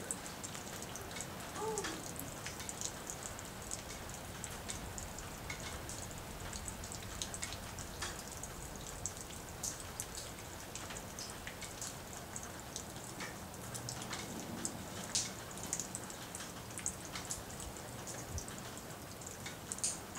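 Steady rain falling, with many separate drops ticking close by at irregular moments.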